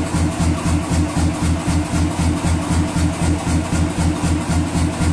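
Self-contained air power hammer running at idle, its compressor side giving a steady, even low chuffing beat of several pulses a second.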